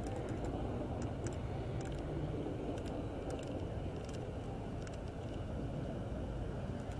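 Steady low rumble of idling car and pickup truck engines, with a few faint clicks.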